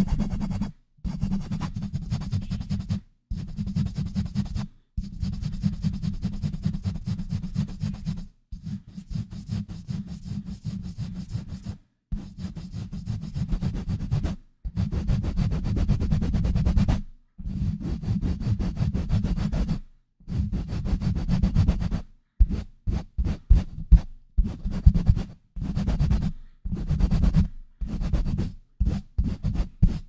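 Fast, rough scratching and rubbing right against a microphone, in stretches of two to three seconds with short breaks. About 22 seconds in it changes to quick mic pumping: short pulses about three a second.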